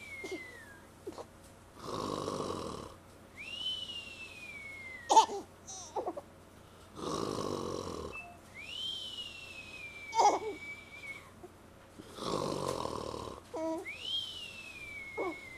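A man snoring in a regular cycle about every five seconds. Each breath is a rough rasping snore followed by a whistle that rises sharply and then slides slowly down. A short, sharp, falling squeal near the end of each whistle is the loudest sound.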